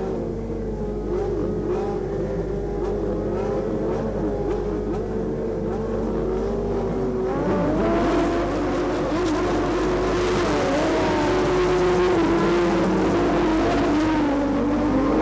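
Several 1988 Formula One cars' engines running and revving together, their pitches rising and falling over one another. The sound grows louder and busier about eight seconds in.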